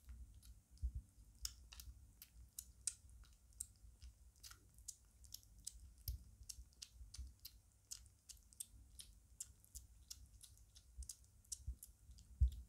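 A five-week-old British Shorthair kitten eating shredded wet food from a plate: quick, irregular smacking and clicking chewing sounds, a few a second, faint.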